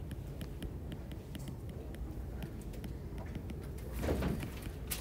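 Light clicks and taps of a stylus on an iPad screen while words are handwritten, over steady low room noise. About four seconds in there is a louder dull thump lasting under half a second, then a sharp click near the end.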